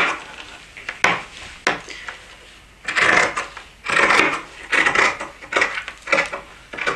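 Fabric shears cutting through fabric on a tabletop: a series of snips as the blades close again and again, roughly one every half-second to second, with a couple of sharp blade clicks about a second in.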